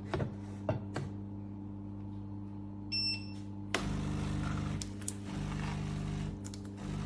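Café Affetto automatic espresso machine: a few light clicks, a short electronic beep about three seconds in, then the machine starts running a moment later with a buzzing hum that pulses on and off about once a second.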